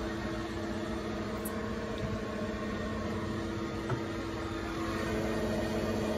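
Steady hum from the powered-up electrical control cabinet of a Haas VF-0E CNC mill, a droning mix of several steady tones over a low rumble.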